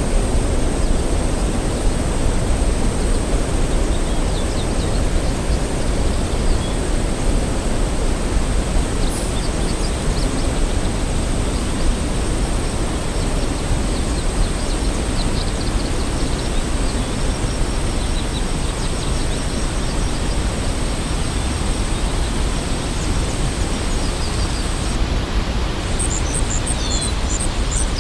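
Steady rushing of a waterfall, with faint bird chirps scattered through it. A run of quick, repeated bird chirps starts near the end.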